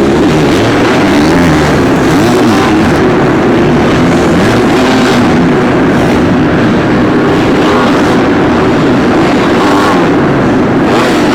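Several supercross dirt bikes' four-stroke engines revving up and down together on the track, their pitches rising and falling and crossing one another.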